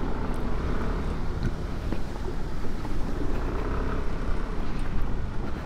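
Scooter engine running at a steady cruise while its tyres rumble over a rough gravel track, with wind noise on the microphone.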